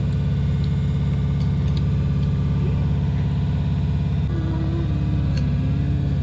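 Steady low hum of a Greater Anglia electric train, heard from inside the carriage.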